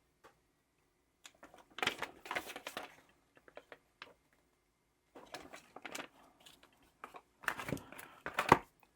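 Hands handling product packaging: faint rustling and clicking of cardboard and paper as items are taken out of the box, in three short spells.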